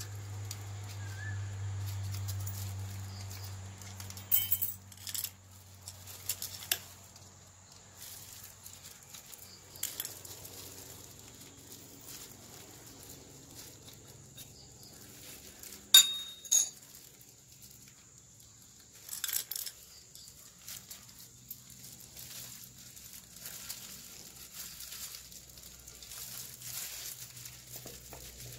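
Metal parts of a disassembled Toyota Premio car AC compressor clinking and knocking as they are handled and set down, in scattered sharp clicks; the loudest comes about sixteen seconds in.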